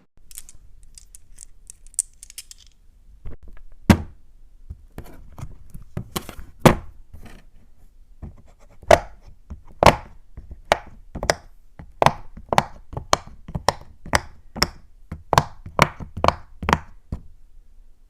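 A fidget toy being worked by hand, making a string of sharp clacks. A few faint high ticks come first; the clacks then quicken to a steady run of about two a second from halfway on.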